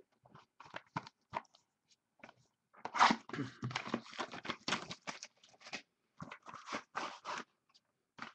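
Trading card pack wrapper being torn open and crinkled by hand, an irregular run of rustles and crackles that is busiest and loudest a few seconds in.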